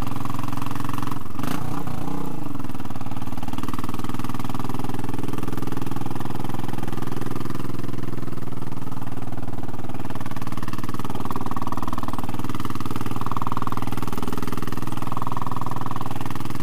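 Royal Enfield Classic 500's single-cylinder engine running steadily while the bike rides along, with wind noise. About a second in there is a brief sharp sound and the engine note shifts slightly.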